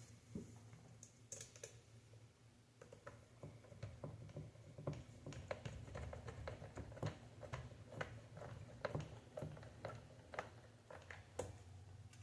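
Faint, irregular small clicks of screws being driven with a screwdriver into an Xbox Series S console's internal parts, with light handling of the metal and plastic parts. The clicks come more thickly after the first few seconds.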